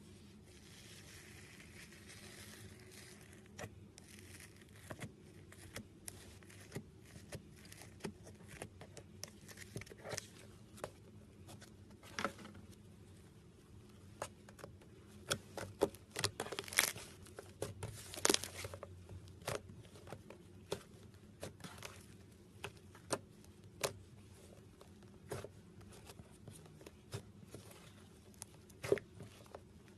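Slime being squished and pressed by hand: irregular sticky pops and crackles, with a louder cluster of pops a little past the middle.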